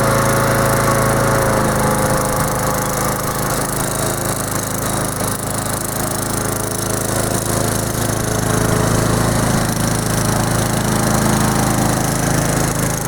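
Gasoline lawn mower engine on a homemade radio-controlled mower running steadily, its note shifting slightly about a second and a half in.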